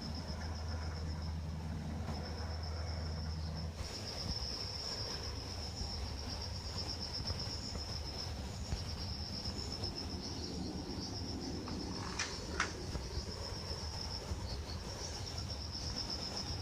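Air conditioner outdoor unit humming low, then cutting off about four seconds in: the unit stops on an error with its fan not turning, a fault in its control board. A steady high insect chirring runs throughout, with two sharp ticks about twelve seconds in.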